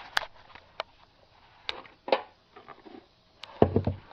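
Handling noises: scattered light clicks and knocks, then a short cluster of louder dull thumps near the end.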